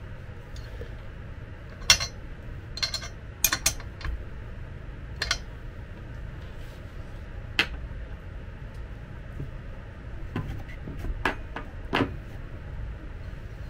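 A steel wrench clinking and tapping against the axle nut and steel fork of an electric-scooter hub-motor wheel as the nut is tightened. About ten sharp metallic clicks come at uneven intervals, over a low steady hum.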